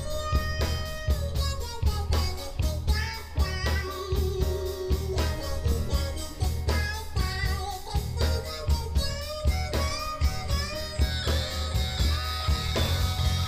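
Live rock band playing: electric guitar lines over bass guitar and a steady drum-kit beat.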